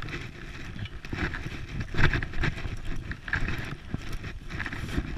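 Dog scooter jolting and rattling over rough, overgrown ground, its tyres pushing through twigs and dead undergrowth; irregular knocks, the loudest about two seconds in.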